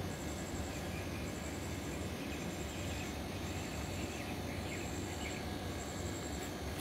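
Insects trilling, a high rapid pulsing that comes in stretches of about a second with short breaks between, over a steady low background hum.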